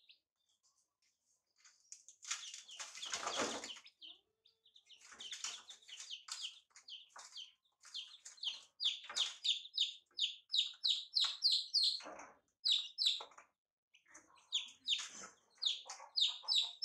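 Domestic chicken chicks peeping, short high chirps repeated about three a second and sometimes overlapping. A brief noisy burst comes about two seconds in, before the chirping builds up.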